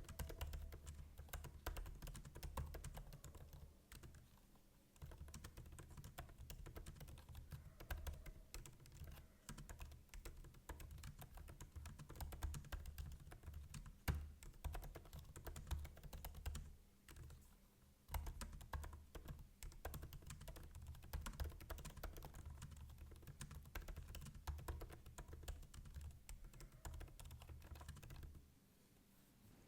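Continuous typing on a MacBook's built-in laptop keyboard: quick, light key clicks, with short pauses about four seconds in, around seventeen seconds and near the end.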